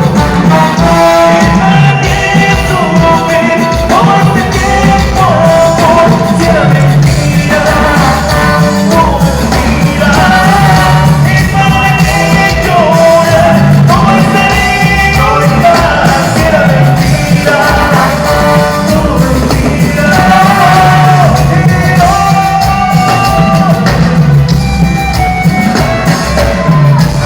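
Live band playing a Latin song through a PA system during a sound check: a bending melody line over a steady bass and percussion.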